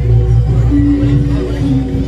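Loud music with a heavy, sustained bass line and held notes above it.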